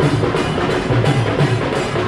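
Two-headed barrel drum (dhol) beaten by hand in a steady, driving rhythm: deep booming strokes about three a second, with sharp slaps between them.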